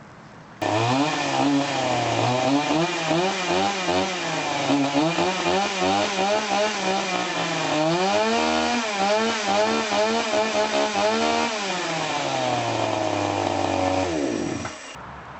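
Rotfuchs RS-5200 two-stroke petrol chainsaw running and being revved up and down repeatedly. It then settles at a lower steady speed, and near the end it winds down and stops.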